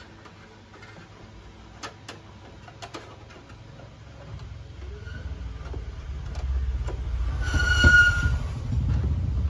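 A motor vehicle's low engine rumble builds up and a high-pitched horn sounds for about a second near the end. A few light clicks come earlier, from a screwdriver working on plastic tailgate trim.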